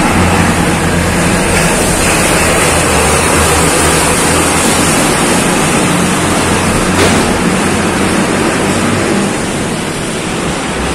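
Loud, steady rushing noise inside a road tunnel, the tunnel's own din, easing a little near the end.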